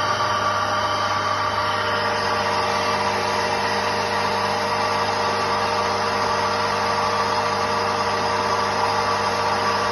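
Rainwater tank pump with a Rainbank mains-switching unit running with a steady electric motor hum. The system is faulty and leaking, and is not drawing water from the empty tank.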